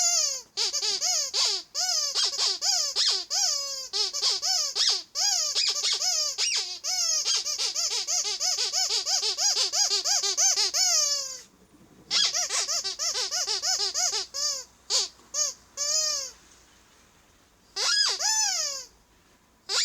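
Rubber squeaky duck toy (Ledraplastic) squeezed over and over, each squeak a quick rise and fall in pitch. The squeaks come several a second in a long fast run, break off about halfway, then return in a shorter run and thin out to scattered single squeaks, with a short gap before a last pair near the end.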